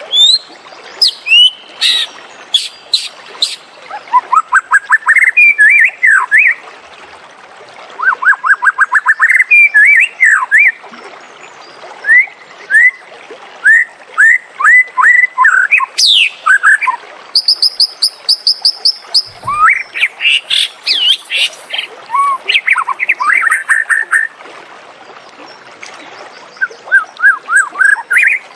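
White-rumped shama singing a loud, varied song: fast runs of repeated rising whistled notes, sharp high notes and quick high-pitched series, in phrases separated by short pauses.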